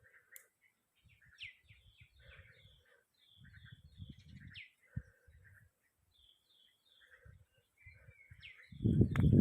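Birds calling: many short chirps and, now and then, a sharp falling whistle. Low rumbling thumps on the microphone come and go, getting much louder near the end.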